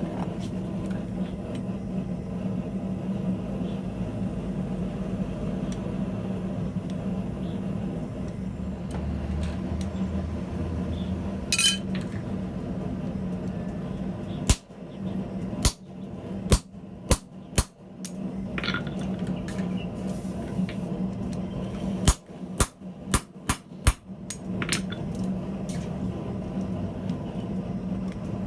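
Blacksmith's hammer striking steel on an anvil: one ringing blow about twelve seconds in, then a run of five blows, a pause, and five more. A steady low hum sits underneath throughout.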